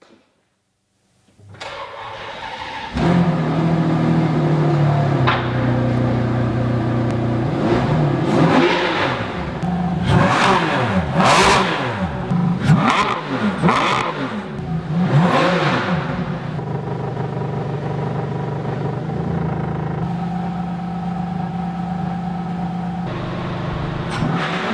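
Ferrari Enzo's V12 engine starting about two seconds in and running at idle, then revved sharply about six times in quick succession before settling back to a steady idle.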